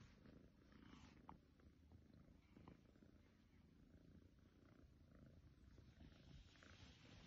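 A cat purring faintly and steadily, with a few faint ticks.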